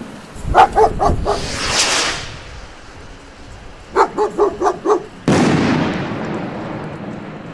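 A dog barking in two quick runs: about four barks near the start and about five more around four seconds in. About five seconds in, a sudden loud boom sets in and slowly dies away.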